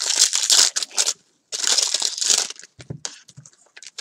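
Foil baseball card pack wrapper crinkling and crackling in the hands, in two bursts of about a second each with a short pause between, then a few small rustles.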